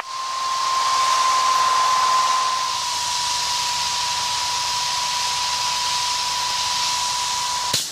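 VHF airband radio static between transmissions: an even hiss with a steady whistle tone that drifts slightly lower in pitch, cutting off just before the next call.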